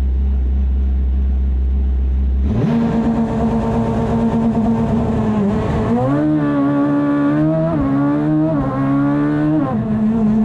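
Fiat 126 racing prototype's engine heard from inside the cockpit. A low steady rumble comes first; after about two and a half seconds the engine note rises and runs at high revs, then jumps up and drops back several times as the driver accelerates and lifts off.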